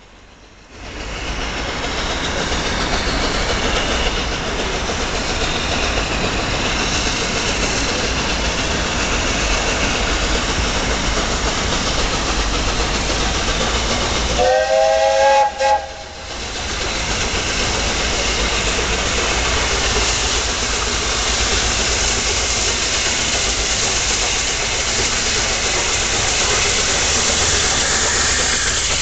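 Steam locomotive Duke of Gloucester approaching through the station under a steady loud rushing noise, its steam whistle sounding once about halfway through for about a second and a half, with several tones together. The engine comes close with steam near the end.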